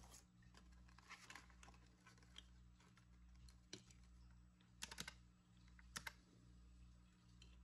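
Faint clicks of a desk calculator's round plastic keys being pressed: scattered single taps, with a quick run of several presses about five seconds in.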